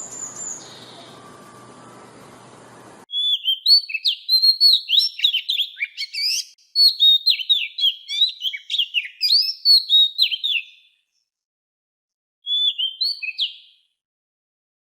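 A songbird singing rapid, twittering phrases of quick high chirps: a long run of song, then a short closing phrase after a pause. A faint background hiss cuts off abruptly about three seconds in, just before the song starts, leaving the song against dead silence.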